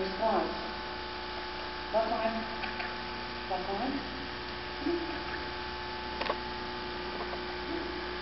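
Steady electrical hum, with a few brief, soft vocal sounds every second or two.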